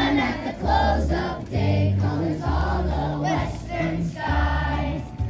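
Children's choir singing together to an instrumental accompaniment with deep bass notes that change about once a second.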